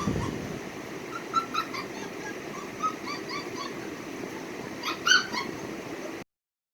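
Border collie puppy whimpering in a string of short, high whines over a steady background hiss, louder around five seconds in; the sound cuts off suddenly near the end.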